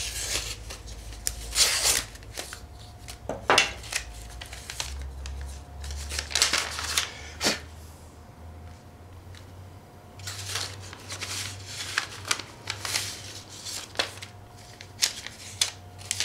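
Paper rustling and crinkling in irregular bursts as an envelope is slit open with a knife and a folded letter is pulled out and unfolded by hand.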